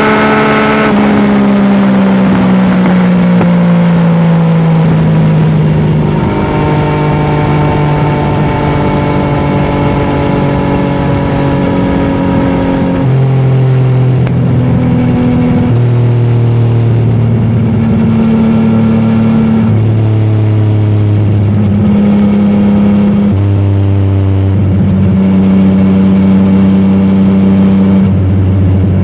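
Yamaha MT-09's three-cylinder engine running loud through an Akrapovic exhaust at highway speed. Its note falls over the first few seconds, holds steady for a while, then steps up and down several times in the second half.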